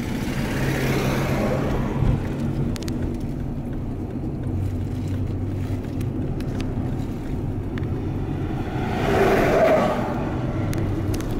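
Steady tyre and wind noise inside a Toyota car's cabin as it rolls at speed in neutral. The rush swells louder about nine seconds in as another vehicle passes close by.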